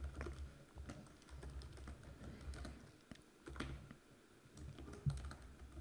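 Faint typing on a computer keyboard: a run of irregular keystroke clicks as a line of code is typed.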